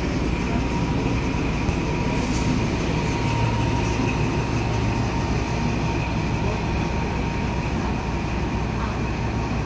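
XPT diesel-electric train pulling away slowly, its diesel power car running with a steady rumble and a constant high whine as the stainless-steel carriages and power car roll past.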